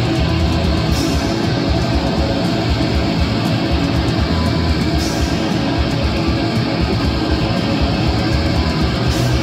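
Live rock band playing loud and steady: electric guitar, bass guitar and drums, with a cymbal crash about every four seconds.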